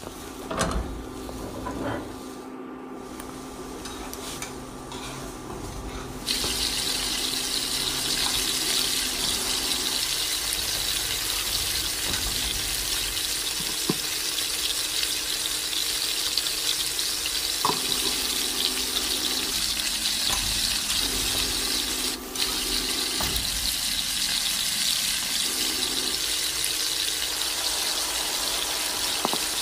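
Water running steadily from a kitchen tap into a sink. It starts suddenly about six seconds in, after a few light clicks and knocks.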